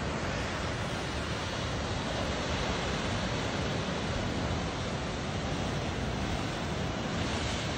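Pacific Ocean surf breaking and churning white over a rocky shore, a steady rushing noise of water with no pauses.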